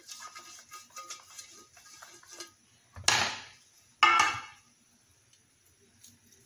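Metal baking tray being greased with oil: light scraping and ticking of the brush against the metal, then two loud metallic clanks a second apart as the tray is handled.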